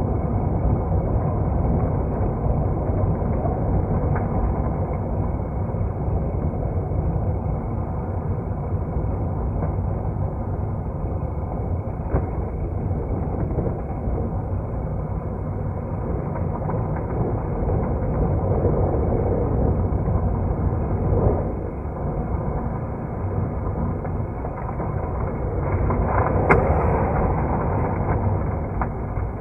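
Steady low rumble of a moving vehicle, engine and running noise, with a brief louder knock or jolt near the end.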